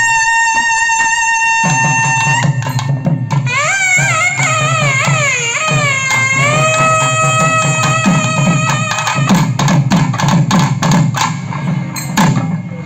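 A trumpet holds a long high note, then plays a wavering, ornamented melody that settles into steady held notes, over naiyandi melam drums that come in about two seconds in. About nine seconds in the trumpet stops and the drums keep beating alone.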